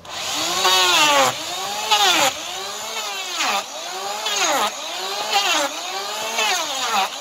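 Electric hand planer starting up and shaving an overgrown draft horse hoof, its motor pitch rising and falling about once a second as each pass bites into the hoof wall.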